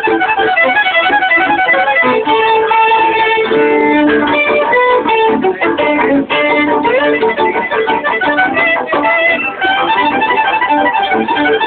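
String quartet of violins and cello playing classical music live: the upper strings carry a busy line of quick notes over lower held notes.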